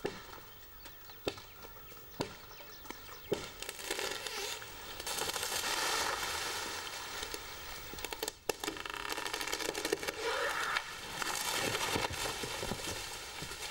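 Leafy kapok tree branches being cut and crashing down: a few sharp chops in the first seconds, then a long crackling rustle of leaves and snapping twigs.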